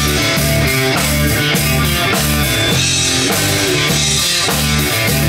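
Live rock band playing an instrumental passage: electric guitars over a drum kit keeping a steady beat.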